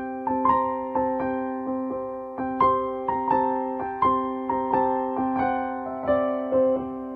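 Background piano music: a slow melody of single notes, a new one struck about every half second, over a held chord.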